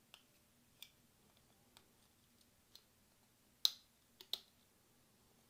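Plastic pry tool prying at the metal processor heat shield on the Amazon Echo Pop's circuit board: a scatter of about seven small, sharp clicks. The sharpest comes about three and a half seconds in, with two more close together just after.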